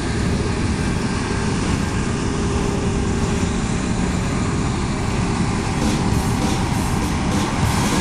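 Heavy farm machinery's diesel engine running steadily at harvest work.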